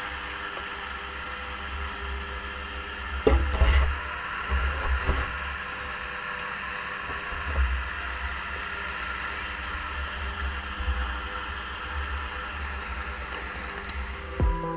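Water splashing and sloshing against a gigging boat's side as a gig spear is thrust in and worked, over a steady low motor rumble. A few sharp knocks come about three and a half seconds in, with smaller ones around five seconds.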